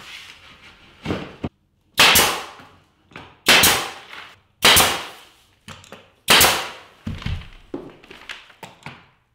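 Pneumatic nail gun firing nails through baseboard molding into the wall: four loud sharp shots about a second to a second and a half apart, each fading quickly, with fainter clicks between them.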